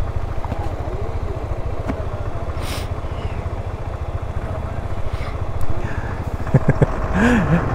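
KTM 390 Adventure's single-cylinder motorcycle engine running steadily at low speed, with faint voices near the end.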